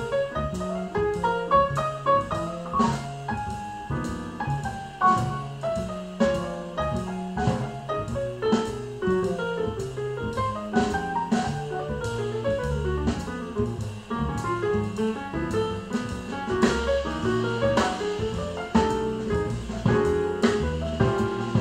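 Jazz instrumental passage with piano, walking bass and drum kit, played back through Fyne Audio F500 floorstanding loudspeakers and picked up by room microphones.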